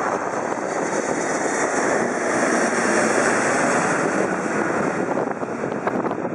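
Twin-engine jet airliner on landing approach, gear down, passing low overhead: a steady jet engine rush that swells to its loudest about three seconds in as it goes over, then starts to fade.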